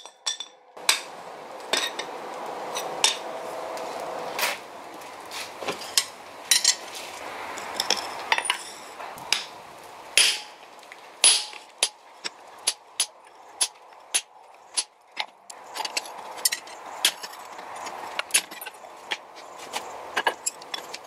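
Hammer blows on a handled hot-cut chisel, driving it into leaf-spring steel on an anvil: sharp metallic strikes at an irregular pace, sometimes several a second, over a steady rushing noise in the background.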